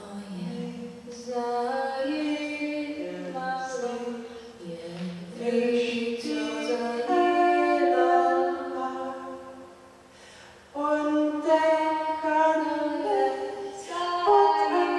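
Two female voices singing a cappella, holding long notes that step from pitch to pitch, with a brief break about ten seconds in.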